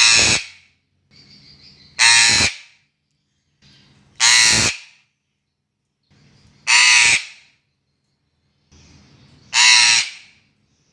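A bird giving five loud, harsh calls, each about half a second long, roughly every two seconds.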